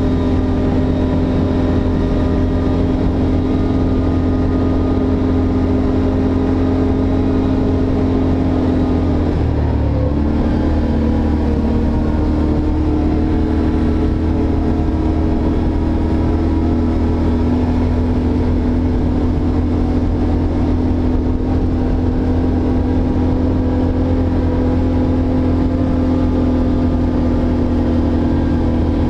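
ATV engine running steadily while the machine travels along a gravel trail, heard from the rider's helmet. Its pitch changes about nine and a half seconds in, then holds steady again.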